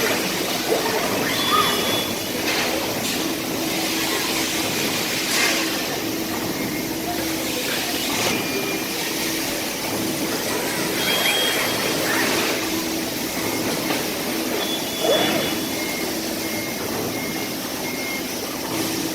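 Factory floor machinery noise: a steady hum and hiss with scattered clanks and a few short electronic beeps, including a row of beeps near the end.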